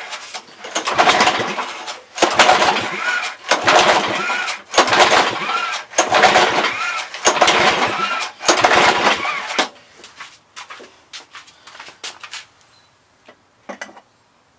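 Lawn Boy two-stroke mower engine cranked over and over by its recoil pull cord, about one pull a second for some ten seconds, each pull a whirring rush that never fires. This is a compression test on a worn engine that reads only about 40 psi, well short of what it needs to run. A few small clicks follow.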